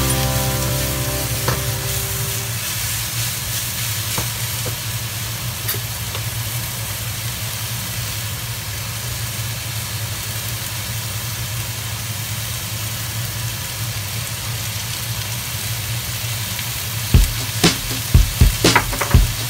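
Julienned vegetables sizzling in a stir-fry wok, a steady frying hiss over a low hum. Near the end comes a quick run of sharp knocks.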